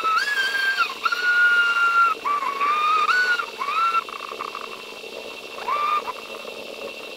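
Whistling tones in a run of held notes with short slides up and down between them, over a steady hum, on a corrupted camera file: either a recording error or an unexplained anomaly. The notes are strongest in the first four seconds, then weaker, with one more near six seconds.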